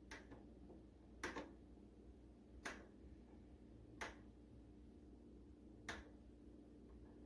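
About five single sharp clicks, spaced a second or two apart, over a faint steady hum: the control dial of a Cuisinart TOA-65 air fryer toaster oven being turned a step at a time.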